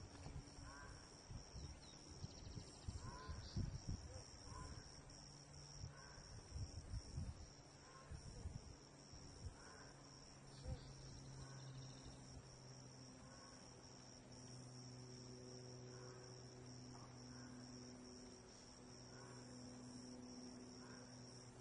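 Steady, faint high-pitched drone of insects, with small chirps about once a second. Low bumps come through in the first several seconds, and a faint low hum comes in around the middle.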